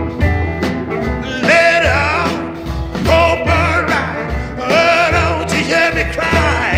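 Background music: a song with a singer over a steady beat and bass line.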